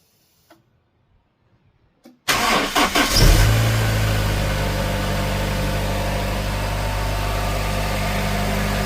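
Honda H22A 2.2-litre DOHC four-cylinder engine cranked by the starter about two seconds in, catching within a second with a brief rise in revs, then settling into a steady idle. It runs evenly with no misfire, its valve clearances freshly adjusted.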